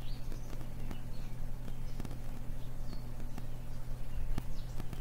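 Steady low electrical hum under a hiss of static, with a few scattered faint clicks and crackles, from a faulty computer recording setup.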